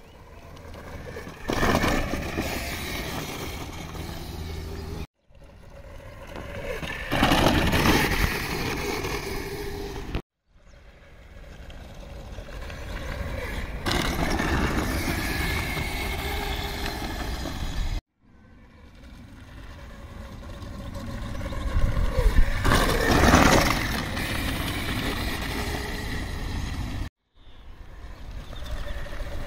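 Small 36-volt electric quad bike running over a dirt track, its motor whine and tyre noise rising to a peak as it passes close by. This happens four times, with short silent breaks between the passes.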